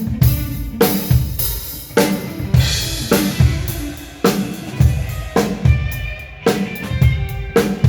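Drum kit played in a sound check: a steady beat of bass drum and snare hits with cymbals ringing over them.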